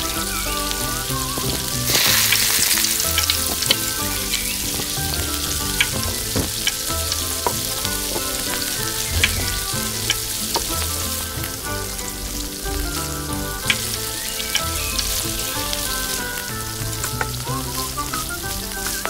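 Peeled boiled eggs frying in hot oil in a miniature steel kadai: steady sizzling, louder for a moment about two seconds in, with a few sharp clicks of utensils against the pan.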